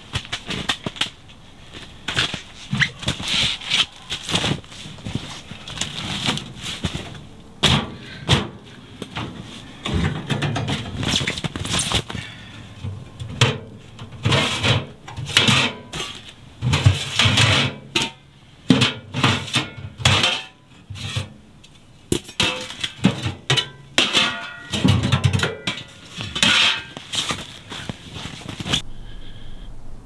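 A sheet-metal camp wood stove and its stovepipe sections being handled and set in place: irregular metallic clanks and knocks, several a second at times, some ringing briefly.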